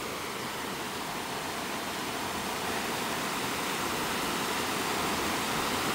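River water rushing in a steady, even flow, the river still running with rainwater, growing slightly louder toward the end.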